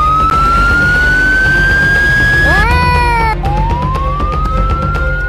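Police car siren sounding over a low rumble. Its pitch climbs slowly for about two and a half seconds, swoops quickly up and down, then climbs slowly again.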